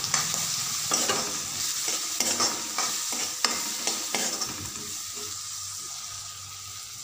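Metal spatula stirring green peas in a hot oiled metal kadai, clicking and scraping against the pan over the sizzle of frying. The stirring stops about four and a half seconds in, leaving a softer steady sizzle.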